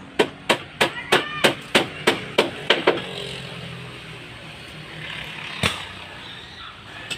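Hammer blows on wood: about ten quick strikes at roughly three a second, some with a short metallic ring, then a pause and one more single blow.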